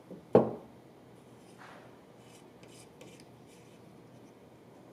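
A socket wrench set down on a hard surface with one sharp clack about a third of a second in, followed by faint scrapes and light ticks as a plunger is worked off a pump's piston rod by hand.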